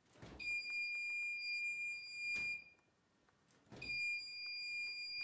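Active piezo buzzer of a homemade Arduino wireless alarm going off: a steady high-pitched tone that sounds for about two seconds, stops, then starts again nearly four seconds in. This signals that the alarm is triggered when the fridge door opens in front of its ultrasonic sensor. Short knocks come just before and near the end of each tone.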